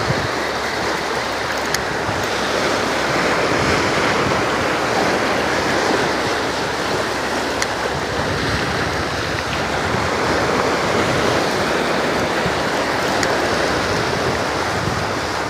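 Steady wash of sea surf, with some wind on the microphone.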